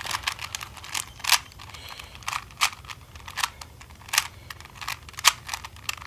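A 3x3 Rubik's Cube being scrambled by hand: its plastic layers turn with quick, irregular clicks, about two a second.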